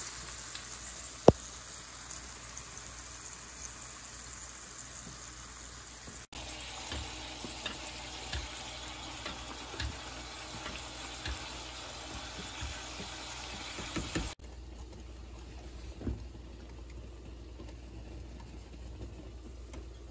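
Lamb chops and vegetables sizzling in a frying pan, with a sharp click about a second in. Then rice boiling in a pot of oil and water while a spoon stirs it, with scattered knocks against the pot.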